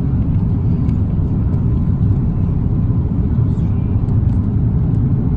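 Steady low roar inside the passenger cabin of an Airbus A330-200 in flight: engine and airflow noise, even in level throughout.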